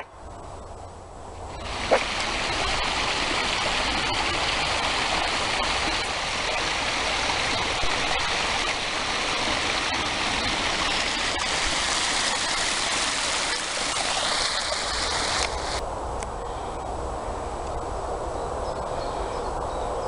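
Steady rushing of flowing water, as from a stream. It starts about two seconds in with a sharp knock, and about fifteen seconds in it turns duller and a little quieter.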